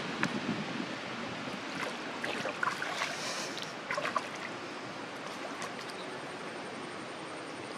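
Monkey splashing about in pond water, with a run of short splashes and sloshes about two to four seconds in, over a steady outdoor hiss.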